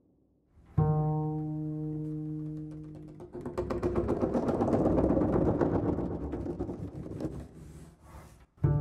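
Double bass with electronics playing a slow contemporary piece. About a second in, a low note sounds with a sharp attack and rings away over a couple of seconds. A dense, scratchy, grainy texture then swells up and fades, and near the end the same sharp low note sounds again.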